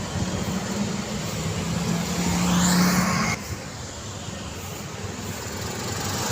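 Road traffic with a steady engine hum. A vehicle passing close builds to the loudest point about three seconds in, then drops off suddenly.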